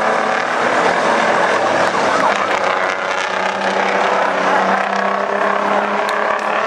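Several big rig race trucks' diesel engines running together on the track, loud and steady, with several engine pitches rising and falling as the trucks move.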